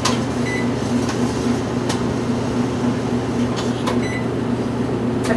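Microwave oven keypad being pressed to set a timer: sharp button clicks and a couple of short, high electronic beeps, over a steady low hum.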